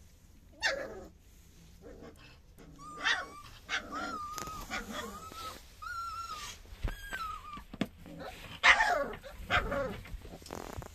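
Three-week-old puppies whimpering: a run of about five high, wavering whines, with a sharper, louder cry near the start and another near the end.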